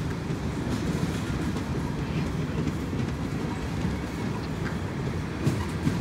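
Freight train's coil cars and tank cars rolling past: a steady rumble of steel wheels on rail with occasional clacks over the joints, two louder ones near the end.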